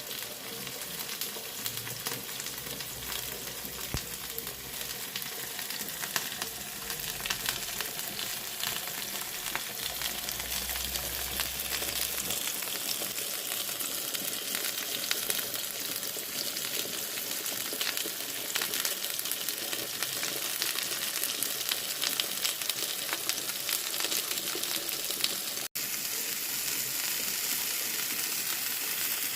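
Beef steak searing in a hot frying pan: a steady sizzle full of crackling fat-spatter pops, growing a little louder and cutting out for a split second once near the end.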